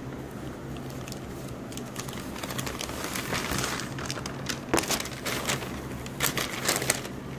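Newspaper pages rustling and crinkling as they are turned and folded open, in irregular crackles that grow louder a few seconds in, over a steady low hum.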